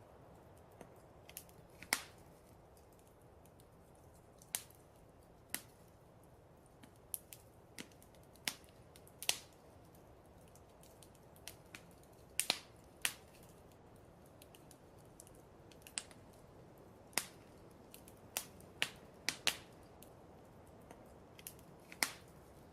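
Wood fire in a fireplace crackling: irregular sharp pops, roughly one a second and sometimes two or three close together, over a faint steady hiss.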